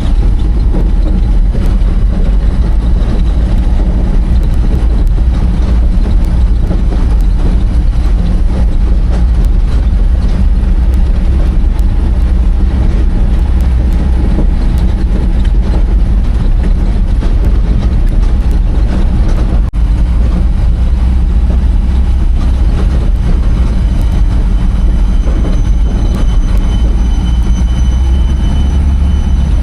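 Heavy vehicle engine running steadily, a loud low rumble with no break in it.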